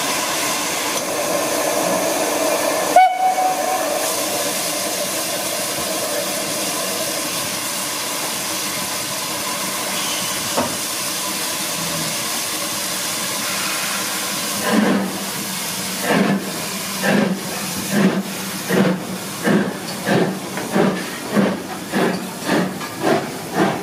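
LMS 4F 0-6-0 steam locomotive No. 43924 hissing steadily from its open cylinder drain cocks, with a brief whistle about three seconds in. From about fifteen seconds in it starts away, its exhaust beats quickening from about one a second to nearly two a second as the train gathers speed.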